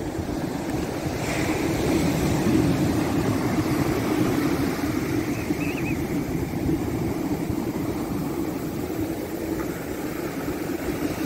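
Sea waves breaking and washing up the sand in a steady surf noise, with wind noise on the microphone.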